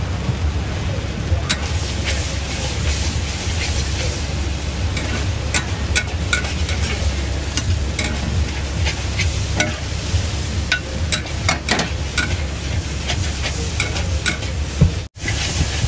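Egg noodles, rice vermicelli and bean sprouts sizzling in a wok over a gas burner, with a steady low rumble under the frying. A metal ladle clicks and scrapes against the wok again and again as the noodles are stirred. The sound cuts out for an instant near the end.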